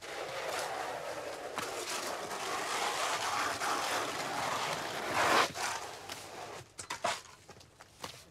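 Metal-bladed shovels scraping through and scooping damp sand as it is turned for lime mortar. The scraping runs continuously for about five seconds and is loudest just before it stops, followed by a few separate short scrapes.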